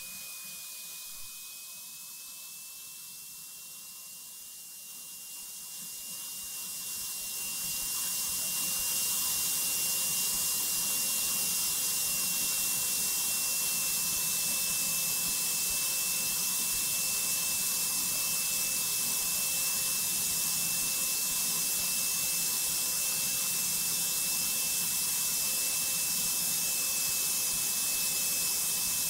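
Cockpit noise of a single-engine high-wing training plane in flight: a steady hiss of engine and airflow that grows louder between about five and eight seconds in, then holds, with a thin high steady whine throughout.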